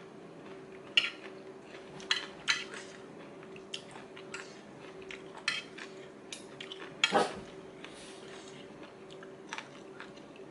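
Metal fork and spoon clinking and scraping against a ceramic plate while scooping salad, in irregular taps about a second or two apart, the loudest about seven seconds in. A faint steady hum runs underneath.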